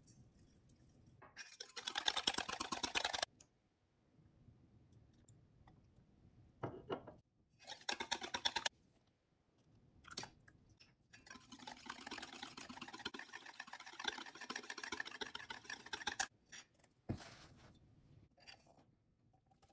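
Wire whisk beating a runny egg mixture in a stainless steel bowl: rapid, even clicking in three bursts, about two seconds, then a second, then about five seconds in the second half, with a couple of single knocks between.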